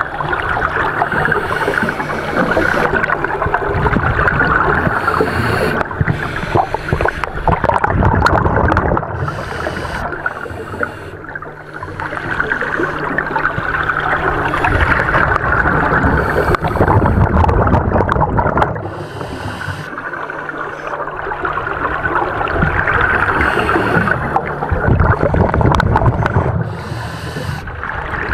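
Scuba breathing heard underwater through the camera: regulator hiss on each inhalation and bubbling exhalations, rising and falling in slow cycles every few seconds.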